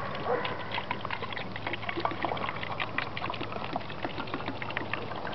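Water pouring from a 2-liter plastic pop bottle into a smaller plastic bottle, a steady splashing pour with many small splatters.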